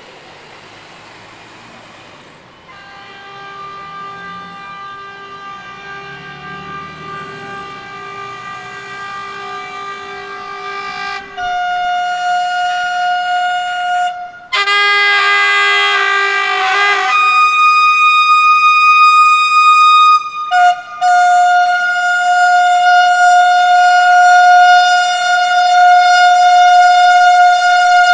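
NS (Dutch Railways) train horns held in long protest blasts, several sounding together. They start faint about three seconds in and grow louder as more horns join with different pitches, clashing loudest about halfway through, then one high steady horn tone carries on with two brief breaks.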